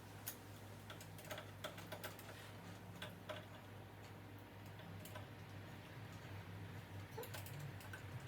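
Faint, irregular small clicks and taps of a screwdriver and screws on the metal hardware of a door handle set as it is screwed in, over a steady low hum.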